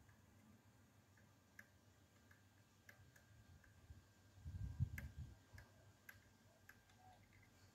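Faint, scattered light clicks of hand work in a car's engine bay, a few each second at most, with one low dull bump about four and a half seconds in.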